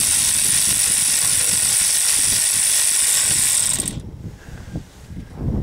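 Cordless electric ratchet spinning out a transmission oil-pan bolt, running steadily for about four seconds and then stopping suddenly. A few soft, low knocks of handling follow.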